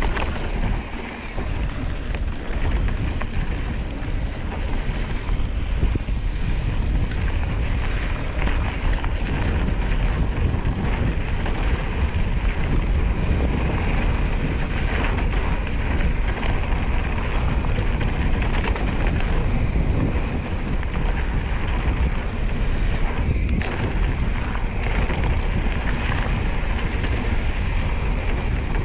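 Wind noise on the microphone mixed with a mountain bike's knobby tyres rolling fast over a dry dirt trail, with frequent small clicks and rattles from the bike as it runs over bumps.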